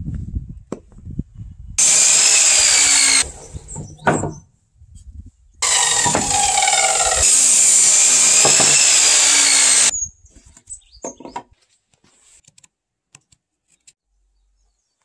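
Rexon electric miter saw running and crosscutting a wooden board in two goes: a short run of about a second and a half about two seconds in, then a longer run of about four seconds, each a steady high whine. A few light clicks and knocks follow.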